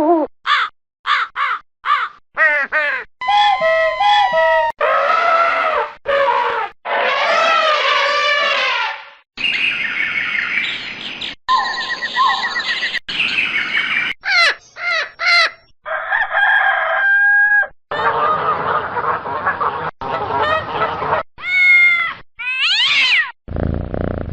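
A rapid run of short animal call sound effects cut one after another, a different call every second or two, many of them bird and fowl calls.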